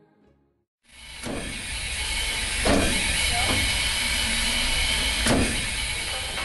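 Steam hissing steadily from Czechoslovak class 475.1 steam locomotive 475.179, with a deep rumble underneath and a few sharp metallic knocks. It starts suddenly about a second in, after a brief silence.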